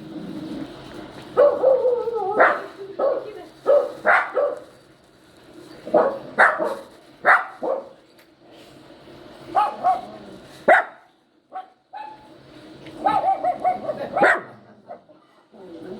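Poodle puppy crying: repeated short, high yelps and yips mixed with wavering whines, coming in bursts with a short pause about two-thirds of the way through.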